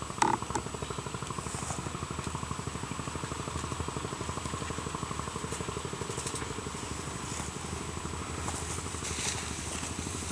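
An engine running steadily at idle, with an even, rapid pulse.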